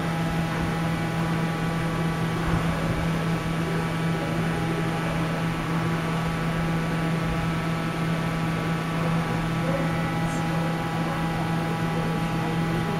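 A steady mechanical hum with a strong constant low tone and fainter steady higher tones above it, unchanging throughout.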